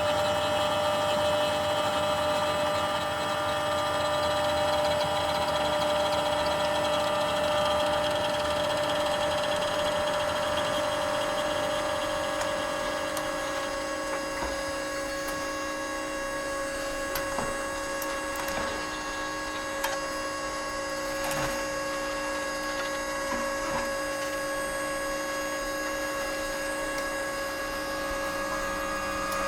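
Copy machine running with a steady hum and whine; from about halfway through it is a little quieter, with a few light clicks.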